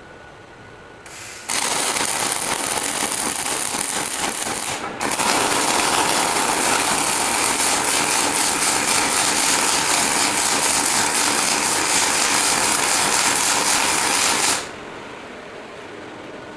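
Robotic arc welding: the welding arc crackles and sizzles steadily for about thirteen seconds, with a brief break near five seconds, then cuts off. A quieter steady hum is left after it.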